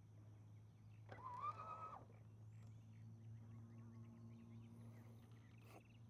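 A single drawn-out animal call lasting about a second, starting about a second in, over a faint steady low hum, with faint chirps and a short click near the end.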